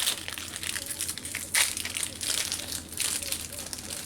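Yu-Gi-Oh booster pack's foil wrapper crinkling and crackling as it is handled and opened, with a sharper, louder crackle about a second and a half in.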